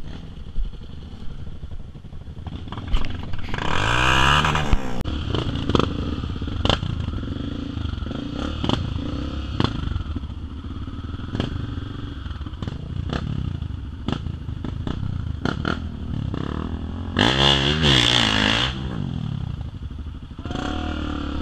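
Off-road motorcycle engines revving hard, loudest in two stretches about four seconds in and again from about seventeen to eighteen seconds, with the pitch swinging up and down. Scattered knocks and clatter come in between.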